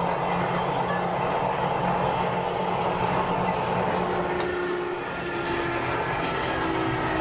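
Sagami Railway New 7000 series electric train with Hitachi GTO-VVVF traction control, running between stations: steady running noise with several steady whining tones. The loudness dips briefly about five seconds in, and lower steady tones come in just before that.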